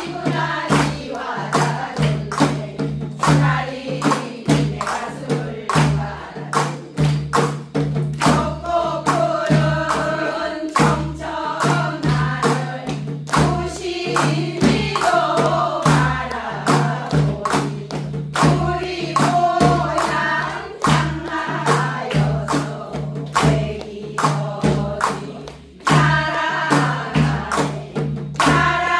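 A group of women singing a Jeju haenyeo folk work song in unison, keeping a steady beat by striking clay water jars (heobeok). The singing and beating break off briefly near the end, then start up again strongly.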